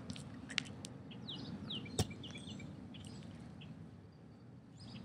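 Small birds chirping, with a few short falling chirps about a second in, and a single sharp click about two seconds in over a steady low background noise.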